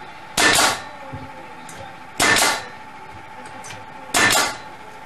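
Pneumatic nailer firing three times, about two seconds apart, driving nails into aspen tongue-and-groove paneling; each shot is a sharp double crack lasting under half a second.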